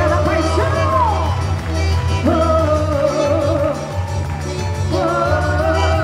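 Loud music with a melody sung over a steady heavy bass line.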